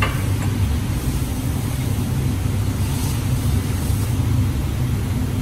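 Steady low rumble of workshop machinery, even throughout with no distinct knocks or rhythm.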